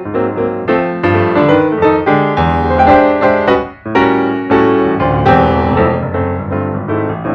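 Background piano music: a run of struck piano notes playing a light melody, with a brief pause a little past the middle.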